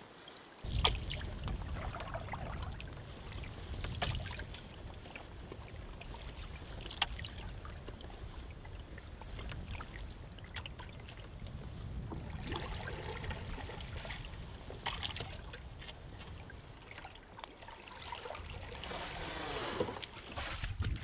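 A folding canoe paddled through shallow water: paddle strokes splashing and water lapping at the hull, with a few light knocks, over a low rumble that starts about a second in.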